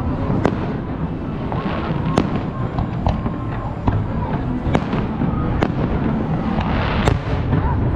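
Fireworks display: aerial shells bursting with sharp bangs, about seven at irregular intervals, over steady background noise.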